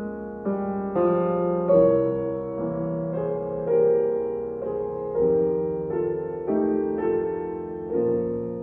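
Slow, gentle piano music: single notes and chords struck about once a second and left to ring and fade.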